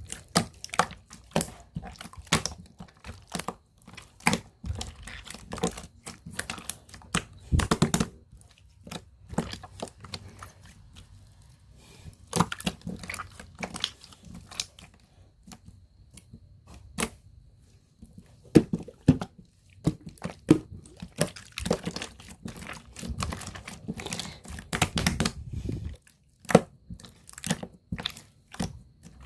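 Slime being handled by hand: pressed, stretched and flipped, giving many irregular sticky crackles and sharp pops in bursts, with a couple of quieter spells.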